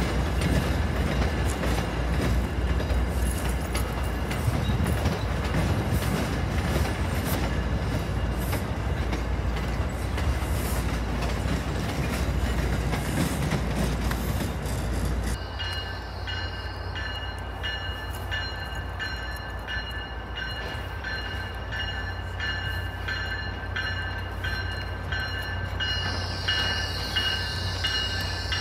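Passenger trains moving on the station tracks. First a loud, even rumble of a train pulling away. About halfway in it changes abruptly to a quieter rumble with a steady, pulsing high ringing as another train approaches.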